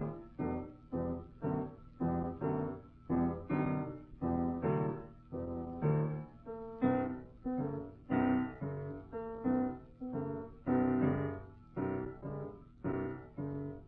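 Background piano music: a steady run of struck chords and notes, each fading before the next.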